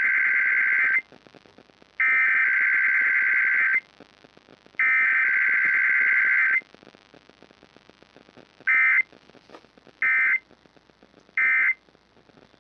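Emergency Alert System required weekly test sent over the air: three long SAME header data bursts (the first already under way), then three short end-of-message bursts about a second and a half apart. There is no attention tone and no spoken message between them, as is usual for a weekly test.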